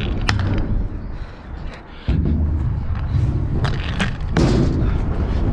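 Stunt scooter rolling on skate park ramps: a sudden loud rumble of the wheels starts about two seconds in as it drops in. A few sharp clacks come from the deck and wheels hitting the ramp.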